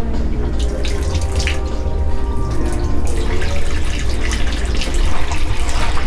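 Water running and splashing inside a Hoshizaki ice machine's water section, over a steady low hum.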